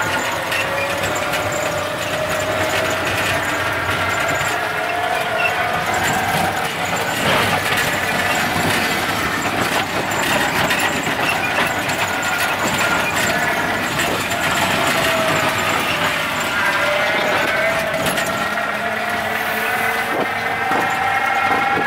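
Electric tricycle riding along a road, heard from inside its cabin: the motor whines in several tones that slowly rise and fall with speed, over road noise and the rattle of the cabin.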